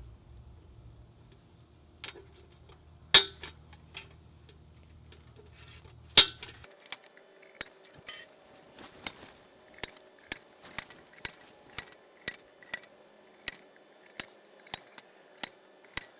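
A metal tool tapping on a stainless steel stockpot: two sharp taps early, then a steady run of lighter taps about twice a second, with the pot body ringing under them.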